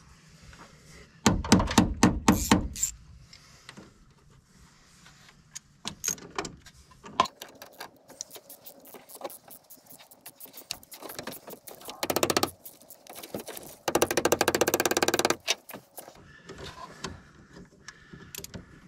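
Quarter-inch ratchet clicking in three bursts of rapid ticks as a fuel line fitting is tightened, the last and longest near the end. Light metallic knocks and handling of tools come between the bursts.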